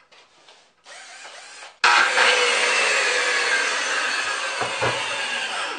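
Corded circular saw's universal motor switched on with a sudden loud whine, its pitch sinking slowly as it runs for about four seconds before it stops near the end. A softer whir comes first, about a second in.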